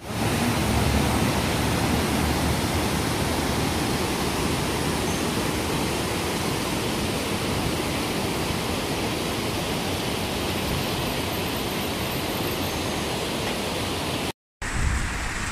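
River water rushing over a low stepped weir and down a rocky bed: a steady rush of water, broken by a brief gap near the end.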